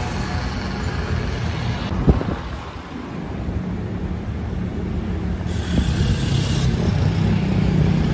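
Road traffic noise: a steady low rumble of passing vehicles, with a sharp knock about two seconds in and a brief hiss a little over halfway through.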